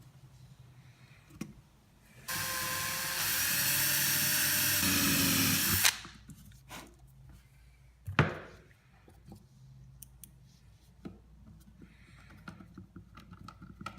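Small electric drill running for about three and a half seconds, getting louder partway through as it speeds up, then stopping; a few seconds later a single sharp knock.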